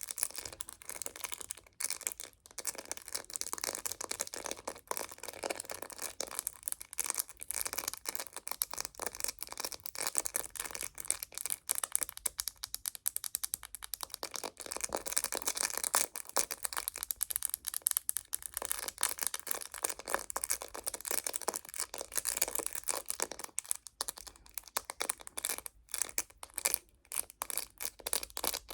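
Rapid tapping on a phone case: a dense run of small sharp clicks, many a second, without a break.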